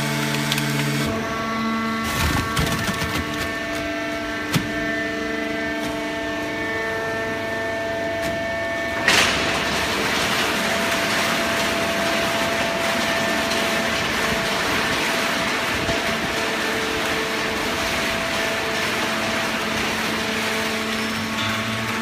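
Automatic horizontal cardboard baler running: a steady machine hum and whine, with a few knocks in the first seconds and a sharp clank about nine seconds in, after which a steady rushing hiss goes on under the hum.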